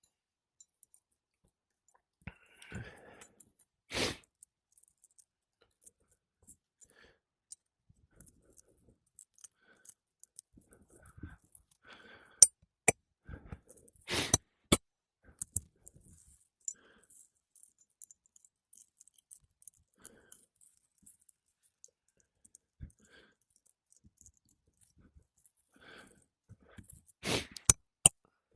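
Sporadic sharp clicks, snaps and light scrapes as old, brittle three-tab asphalt shingles are worked loose. A cluster of louder snaps comes about midway and another near the end.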